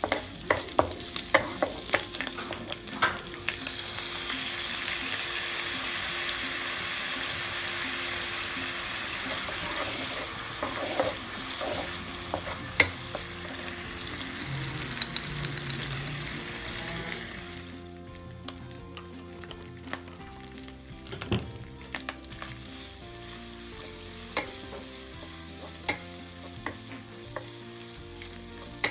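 Sliced Korean rice cakes, ham and bacon sizzling as they are stir-fried in a nonstick wok, with the clack of a plastic spatula against the pan. The sizzle is loud through the middle, where a little water added to soften the rice cakes is cooking off, then drops to a quieter frying sound about two-thirds of the way in.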